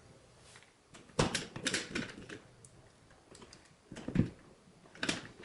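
A few light clicks and rattles as an electrical outlet is straightened in its wall box and its mounting screws are turned, with a duller knock about four seconds in.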